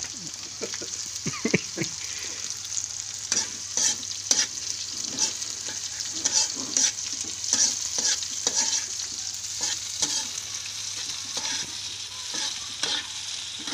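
Crickets and sliced onions frying in oil in a pan, a steady sizzle, with a metal spatula repeatedly scraping and clicking against the pan as they are stirred.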